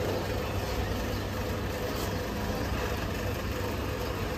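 Steady low engine rumble with general street noise.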